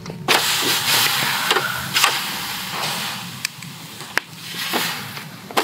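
Slices of salt-marinated pork tongue sizzling as they are laid with metal tongs on the wire grate over charcoal briquettes in a disposable aluminium grill tray. The sizzle flares up three times as each new piece goes on and then dies down, with a few small clicks of the tongs against the grate.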